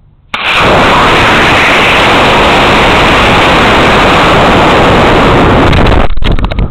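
Model rocket launch heard from the onboard camera's microphone: the Estes Cadet's C6-5 motor ignites with a sudden loud rushing roar that stays steady as the rocket climbs, with rushing air over the microphone. Near the end it breaks up into crackling and buffeting.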